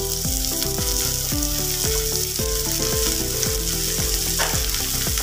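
Ridge gourd pieces and onions sizzling as they fry in oil in a pan, a steady hiss, over background music with a regular beat.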